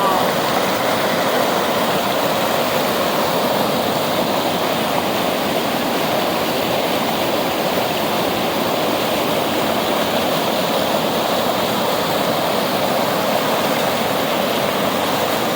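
Waterfall heard close up: a steady, loud rush of falling water.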